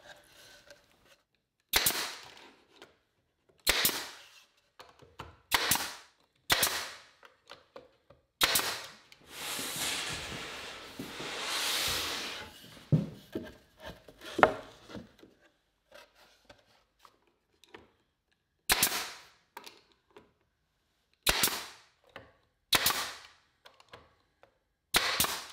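Pneumatic nailer firing 3/4-inch nails into 1/4-inch plywood panels: about ten sharp shots, spaced irregularly a second to a few seconds apart. A stretch of steady noise lasting about three seconds comes near the middle.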